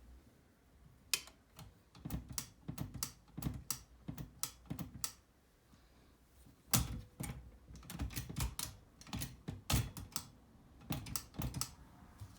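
Silver-Reed typewriter being typed on: irregular runs of sharp key strikes against the platen, with a short pause in the middle and one louder strike after it.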